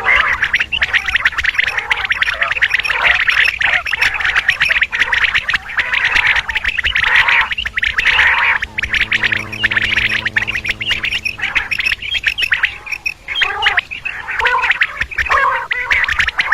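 Quail calling in a dense, continuous chattering chorus of rapid, harsh notes.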